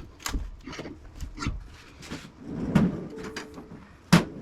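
Hand tools knocking and clinking against a small air-conditioner motor's metal casing as it is pried and hammered apart, a string of irregular taps with one sharp, loud knock near the end.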